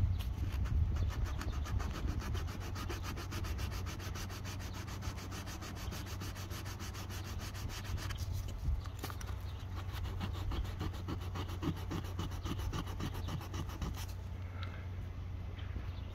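Sandpaper rubbed by hand along the edge of a vinyl patch on a PVC vinyl shed roof, sanding off stray PVC primer. The quick, even back-and-forth strokes turn less regular about halfway through and stop shortly before the end.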